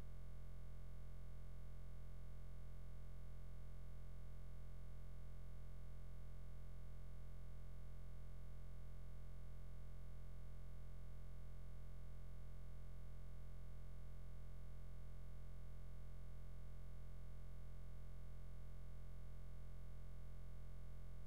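Steady low hum that does not change at all, strongest in the deep bass with a fainter line a little above 100 Hz.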